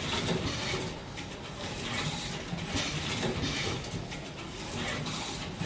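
Automatic connector-housing insertion machine running: mechanical clicking and whirring as it picks up wires with crimped terminals and inserts them into connectors, with brief louder spells about once a second.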